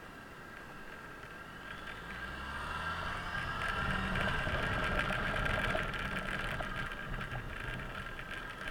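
Suzuki Burgman 650 maxi-scooter's parallel-twin engine running on the road, with road and wind noise. It grows louder over the first few seconds as the scooter speeds up, then eases off as it slows.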